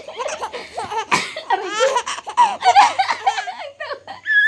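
A baby laughing in a long run of short, rhythmic giggles and belly laughs, with a brief high-pitched squeal near the end.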